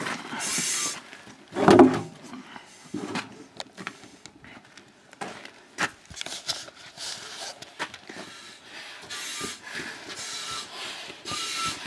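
Footsteps on packed snow and concrete with clothing rustle from someone walking, as a run of short irregular crunches and knocks. One louder short bump comes about two seconds in.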